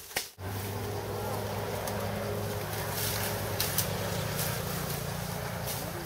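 Motor vehicle engine running steadily with a low hum, starting abruptly a moment in.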